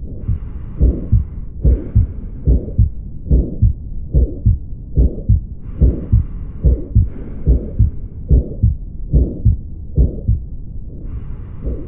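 Heart sounds heard through a stethoscope: a steady lub-dub at about 70 beats a minute, with a murmur filling the gap between the two sounds. This is the systolic murmur of aortic valve stenosis, blood forced through a narrowed aortic valve.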